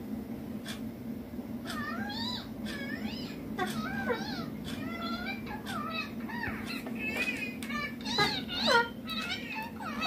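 Young Indian ringneck parakeet making a quick run of short calls that bend up and down in pitch, louder near the end, over a steady low hum.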